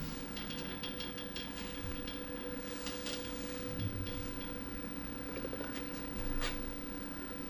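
Steady mechanical hum with scattered light clicks and a few short sharp knocks, the loudest about six seconds in.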